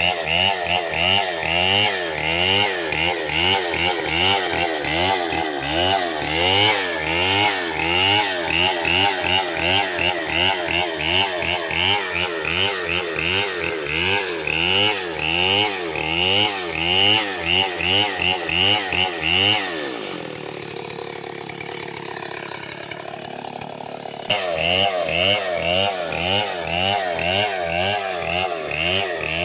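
Chainsaw cutting wood, its pitch swinging up and down rapidly and repeatedly as it loads and frees. About two-thirds of the way through it drops away to a quieter, lower sound for a few seconds, then comes back suddenly at full speed.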